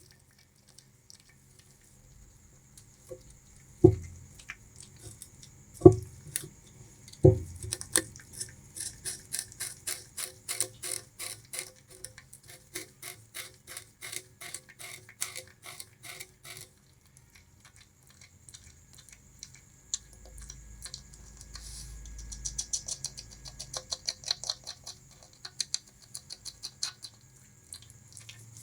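Bamboo rat gnawing and chewing sugarcane. Three sharp, loud cracks come a few seconds in, then crunching at about four or five bites a second, with a pause of a few seconds in the middle before the crunching resumes.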